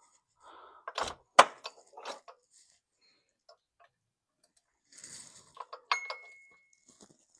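Metal hand tools knocking and clinking against each other and the engine bay while working a wrench on the alternator bolts. There are a few sharp knocks about a second in, then another cluster near the end, one of which rings on for about a second.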